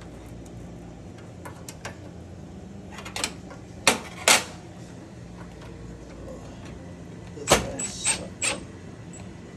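Metal tools and parts clinking and knocking while a replacement gas valve's fitting is tightened with a wrench on a gas cooktop: a pair of sharp clicks, then a cluster of three knocks with a brief metallic ring. A steady low hum runs underneath.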